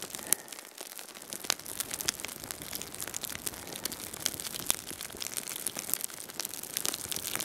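Small fire of tinder and kindling crackling, with irregular sharp snaps and pops: the hand-drill fire has caught.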